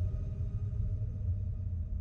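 Dark ambient horror score: a low, steady rumbling drone with a few faint held tones above it.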